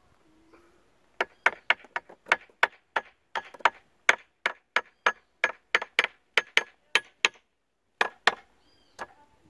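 Rusty hammer tapping repeatedly on the engine of a V4 Johnson outboard that won't start, about three to four sharp knocks a second, with a short pause near the end before two more. It is a rough fix that is said not to be recommended but to help.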